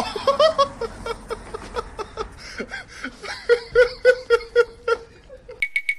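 A person laughing hard in quick repeated bursts, building to louder fits about three and a half seconds in.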